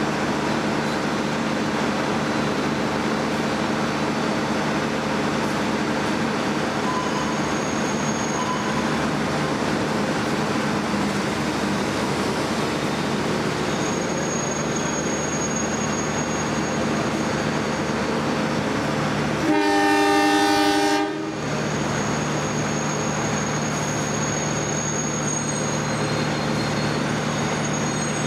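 CC 201 diesel-electric locomotive's engine running with a steady hum. About two-thirds of the way in comes one long horn blast of about a second and a half, the departure signal given as the train moves off.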